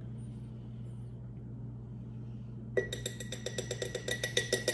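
A metal spoon clinking rapidly against a glass jar, a quick run of ringing taps starting about three seconds in, as minced garlic is measured out and knocked off the spoon. A steady low hum runs underneath.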